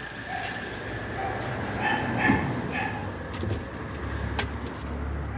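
Chevrolet Onix engine idling steadily, with a dog barking several times in the background and a single sharp click about four seconds in.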